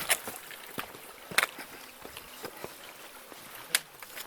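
Footsteps of a hiker on a rocky mountain trail, with three sharp scuffing clicks on stone, over the steady rush of a mountain stream.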